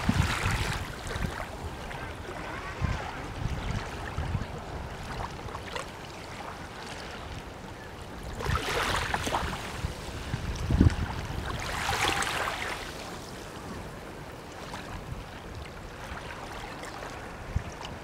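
Small waves lapping and washing up a sandy shore, with two louder washes past the middle. Low wind rumble and bumps on the microphone.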